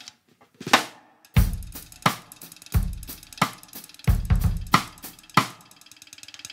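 Snare drum struck in a steady beat of about one and a half strokes a second, while a second stick is wedged between a tension rod and the shell and levered with the forearm to alter the drum's sound. Every other stroke carries a deep boom.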